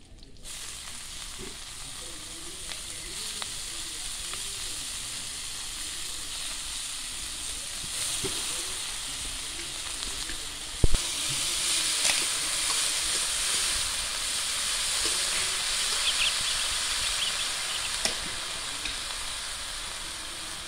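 Chopped sanche shak greens sizzling in hot mustard oil in an aluminium wok over a wood fire, the sizzle starting as the greens go in and growing louder. A spatula stirs through them, with one sharp knock about halfway through and a few lighter taps later.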